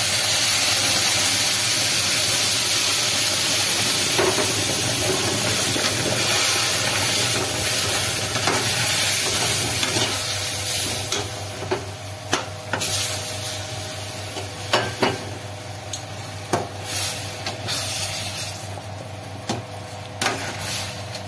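Hot water poured into ghee-roasted semolina and sugar in a hot metal kadhai, hissing and sizzling loudly as it turns to steam. After about ten seconds the sizzle dies down, and a metal slotted spoon scrapes and knocks against the pan as the thickening halwa is stirred.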